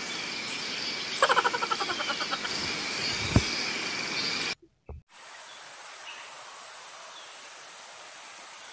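Steady insect drone with a quick run of chattering calls about a second in. A single sharp crack a little past three seconds is the air rifle shot that misses. After a sudden break near the middle, an even hiss with a thin high whine takes over.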